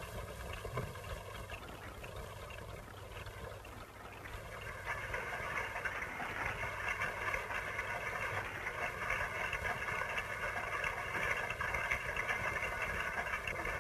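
Many mechanical clocks ticking at once, their overlapping ticks making a dense, continuous clatter that grows louder about a third of the way in.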